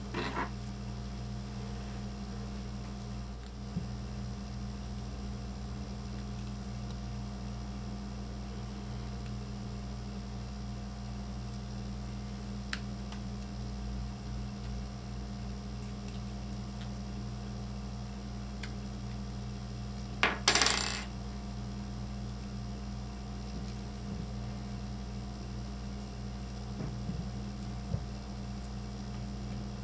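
Small handling clicks from hands working on an RC truck's axle carrier, and about twenty seconds in, one sharp metallic clatter of a small metal object hitting the work surface. A steady low electrical hum sits under it all.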